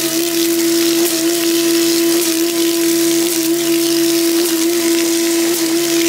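Concrete pump running with a steady high whine that dips slightly about once a second, over a hiss of wet concrete splattering from the hose into a rebar footing form.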